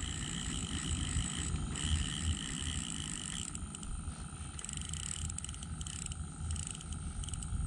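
Steady outdoor background noise: a low rumble under steady high-pitched tones, with a pulsing, chirping tone for the first few seconds.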